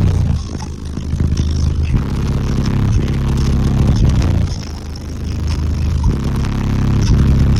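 Bass-heavy music played very loud through a car audio system of twelve 15-inch FI Car Audio subwoofers, the deep bass notes pulsing and swelling, dipping briefly twice.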